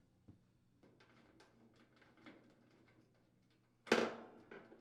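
Faint clicks and small scrapes of a Phillips screwdriver unthreading the mounting screws of a gas range's valve control panel, then a louder knock about four seconds in, followed by a smaller one just after.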